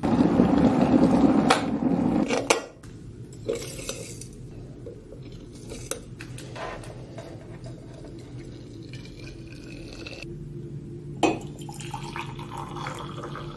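Electric kettle at a rolling boil for the first two seconds or so. Then a string of sharp clinks from a metal spoon against the metal tea strainer and crockery, and near the end tea being poured into a ceramic mug.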